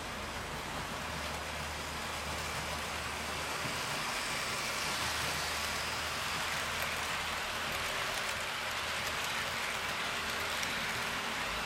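HO-gauge model train, a KATO EF58 electric locomotive hauling a rake of baggage cars, running along the track: a steady hiss of the wheels rolling on the rails, with a low steady hum underneath.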